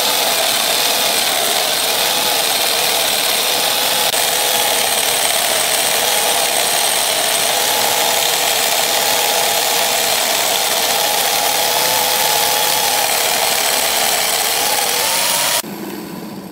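Angle grinder running steadily against a glued-up wood blank spinning on a wood lathe, a loud whine with a cutting hiss as it shapes the wood. About fifteen seconds in the grinder cuts off abruptly, leaving a lower hum that dies away as the machine runs down.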